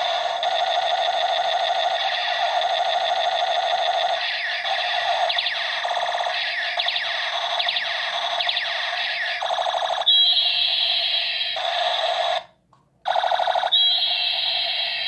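Battery-powered toy gun electronic sound effects: continuous rapid warbling, alarm-like tones with repeated zaps. They cut out for about half a second near the end and start again.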